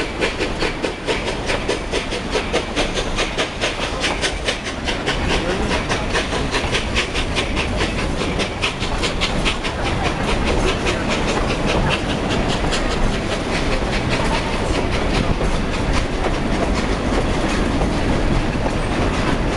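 Durango & Silverton narrow-gauge steam train running, with a fast, even run of clicks over a steady rumble.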